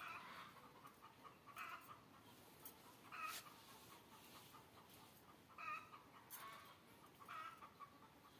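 Faint chicken clucking: about six short calls, a second or two apart.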